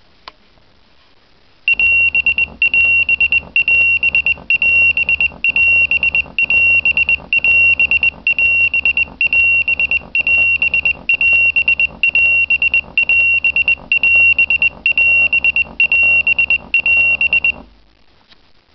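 EuroBOS Romeo fire-brigade pager sounding its alert tone on receiving a test alarm: a loud, high, steady beep repeated about once a second for some sixteen seconds, with a low buzz pulsing in step under each beep. It starts a couple of seconds in and stops suddenly near the end.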